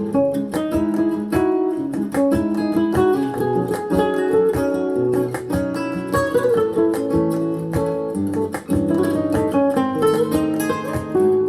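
Acoustic guitar music, quickly plucked and strummed notes, played back through a Grundig Super HiFi Box 2500 loudspeaker for a listening test.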